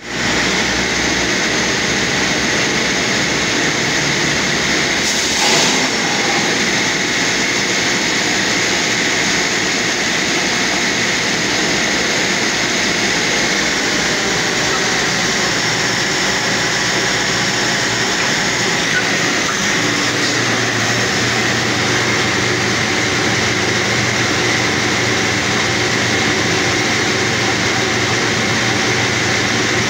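Compressed-air borehole drilling rig running steadily as it bores, its compressor blowing dust and cuttings up out of the hole, a continuous loud mechanical din. A short louder burst comes about five seconds in.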